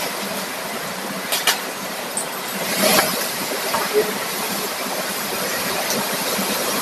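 Steady rush of heavy typhoon rain and wind, with a few short clicks and a brief rasp about three seconds in.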